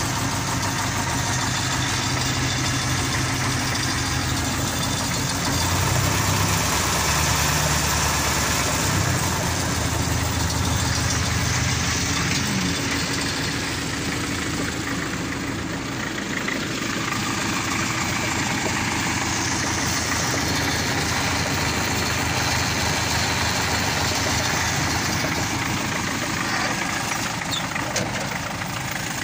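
MTZ-52 tractor's four-cylinder diesel engine idling steadily.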